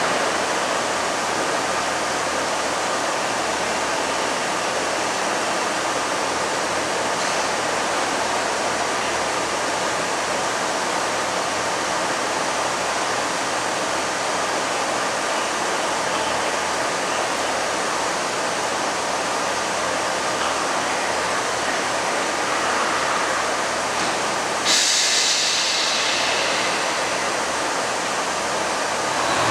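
Class 144 Pacer diesel multiple unit standing at the platform with its engines idling, a steady rumble and hiss. About 25 seconds in, a sudden hiss starts and fades over a couple of seconds.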